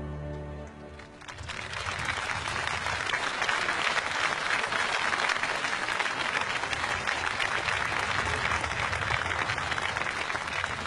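The music's last held chord fades away, and about a second in an audience breaks into applause, which builds quickly and then continues as steady clapping.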